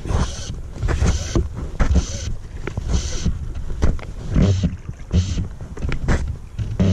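Fly line being stripped in by gloved hands in repeated short pulls, roughly one a second, each a hiss of line and rustle of glove and sleeve close to the microphone. Wind buffets the microphone underneath.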